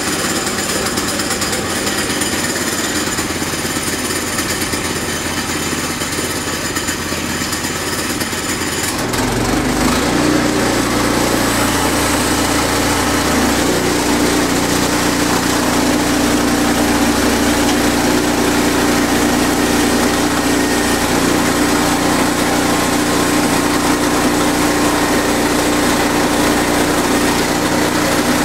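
Sawmill running steadily with a mechanical whine; about nine seconds in the sound changes and gets slightly louder, settling into a steady lower hum.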